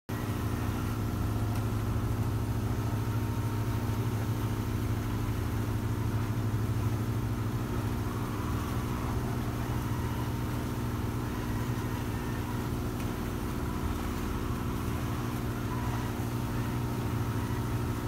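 A sailboat's inboard engine running at a steady speed under way, a constant low hum that does not rise or fall.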